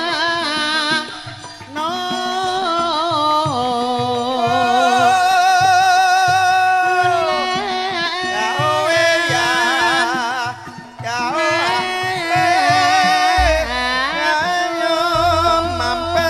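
A female Javanese sinden singing an ornamented melody through a microphone and PA, with long held notes that waver in vibrato, over gamelan accompaniment with regular drum beats.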